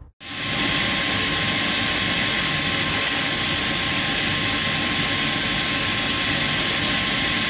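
Loud, steady rushing noise, like an aircraft engine, with a faint steady whine running through it. It sets in suddenly and holds level.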